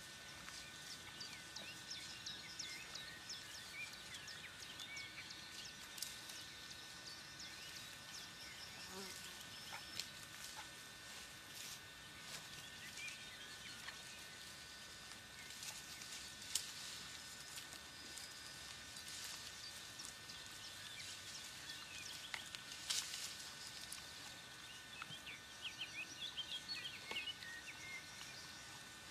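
Small birds chirping, with a quick run of chirps near the end, over faint steady high tones and a few sharp clicks.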